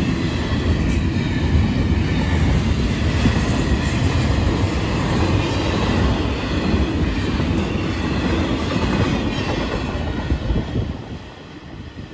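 Freight cars of an intermodal train, double-stack container cars and piggyback trailer flats, rolling past close by with a steady rumble and clatter of wheels on rail joints. About eleven seconds in the last car clears and the sound drops away sharply.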